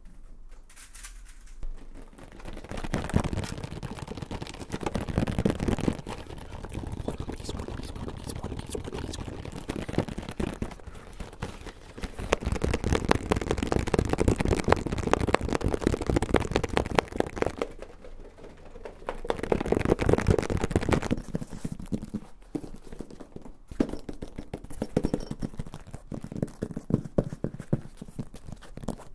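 Fast, irregular fingernail tapping and scratching on a string of objects, first a card-game box, then a grey foam panel near the end, in dense rattling runs of taps that swell and ease off.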